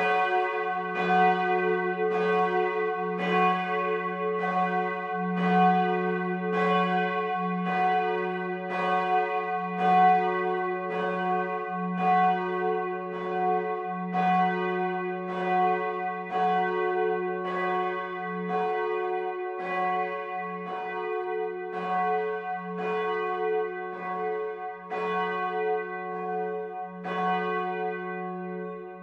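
A single swinging bronze church bell rung on its own, its clapper striking about once a second. Each stroke rings out with a long, steady hum that carries over into the next.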